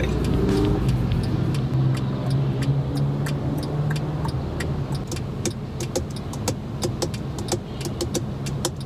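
Cross traffic passing in front of a car waiting at a red light: motorcycles, a jeepney and a box truck going by, heard from inside the cabin over a steady low engine hum. A run of quick sharp ticks sounds through most of it.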